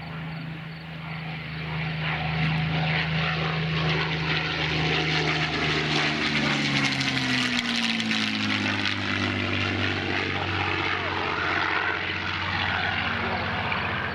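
P-51D Mustang's Packard Merlin V-12 engine and propeller passing by: the steady engine note gets louder over the first couple of seconds, then drops in pitch about seven to eight seconds in as the plane goes past.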